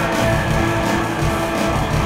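Live rock band playing an instrumental passage: guitar strummed over a steady pulsing drum beat.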